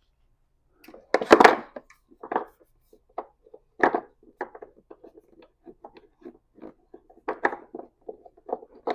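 Battery hold-down bracket and its hardware being fitted: a run of irregular knocks and clatters, the loudest about a second in.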